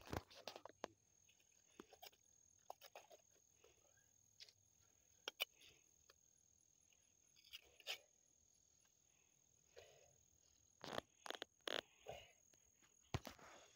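Faint, scattered squelches and plops of bare hands scooping wet mud out of a small dug hole, a little busier near the end, over a faint steady high-pitched whine.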